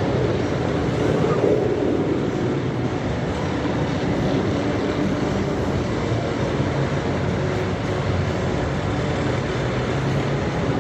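Steady mechanical rumble of a running vehicle, with a low hum underneath.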